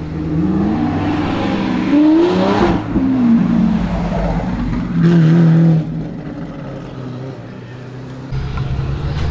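Supercar engines revving and accelerating as the cars pull away one after another. A rev climbs in pitch for about two seconds and falls back, and a loud, steady burst of engine comes about five seconds in.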